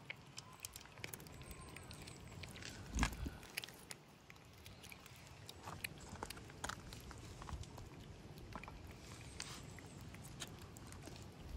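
Cats eating: faint crunching of dry kibble and lapping at soft wet food, a run of small clicks throughout, with one louder thump about three seconds in.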